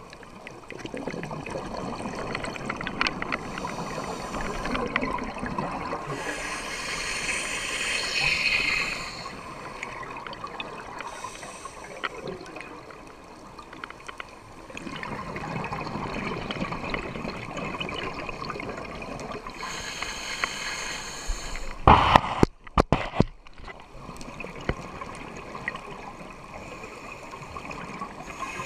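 Water running and splashing, swelling and easing in level over several seconds. About 22 seconds in there is a loud sudden thump, and the sound briefly cuts out.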